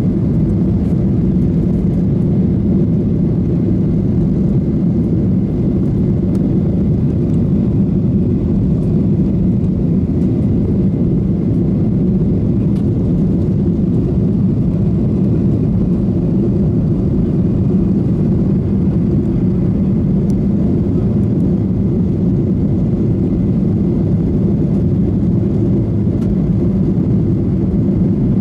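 Cabin noise of a Boeing 737-800 climbing out shortly after takeoff, heard from a window seat aft of the wing: a loud, steady, deep roar of its CFM56-7B engines and the airflow, with a faint high whine.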